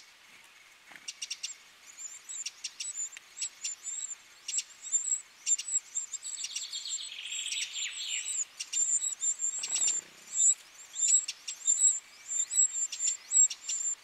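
Eurasian wren nestlings begging at the nest: rapid, very high, thin chirps that grow denser and louder over the first few seconds, with a brief hissing sound around the middle.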